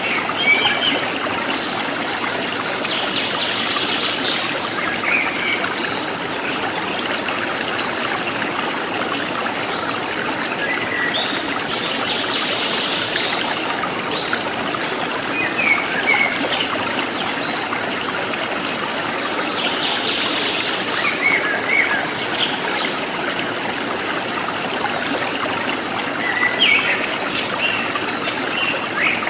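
Forest stream trickling and gurgling steadily, with wild birds calling over it: short chirps and a buzzy call that comes back about every eight seconds.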